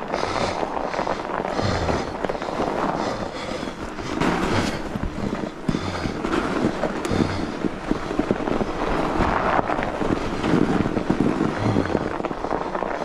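Fat bike tyres rolling over wet, packed snow: a steady crunching crackle with many small clicks.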